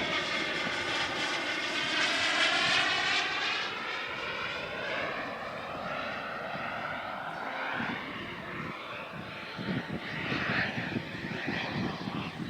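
Turbine engine of a radio-controlled model jet, the Hangar 9 Aermacchi MB-339, whining as the jet passes. The pitch sweeps and the sound is loudest about two to three seconds in, then fades away.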